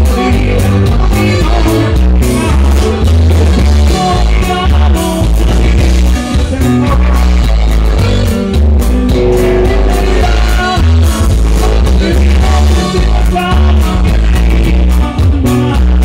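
Norteño band playing dance music with a singer, the bass loud and steady under a regular beat.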